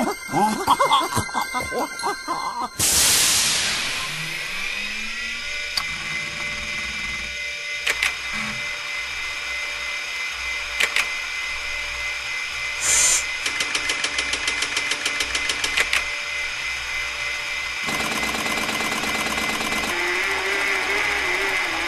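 Synthesized sci-fi sound effects of a robot booting up and scanning. A short stretch of music gives way to a whoosh about three seconds in, then a steady electronic hum with a high whine, scattered beeps and clicks, a rapid run of even clicks in the middle, and a wavering tone near the end.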